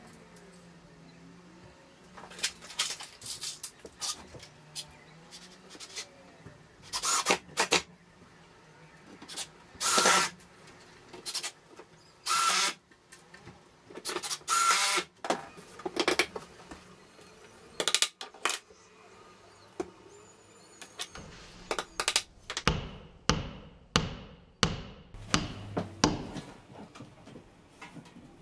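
Cordless drill running in several short bursts, boring holes into an oak table frame. It is followed by a quick run of sharp knocks over the last several seconds.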